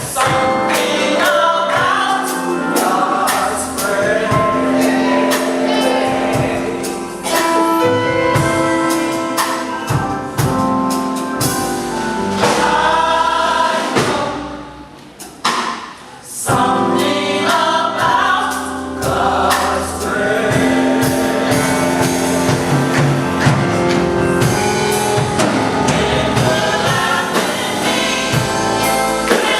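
Gospel choir singing with instrumental accompaniment, the sound dropping away briefly about halfway through before the full choir comes back in.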